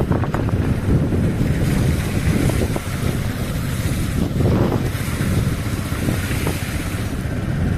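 Heavy wind rumble buffeting the microphone, with the noise of a moving vehicle underneath it.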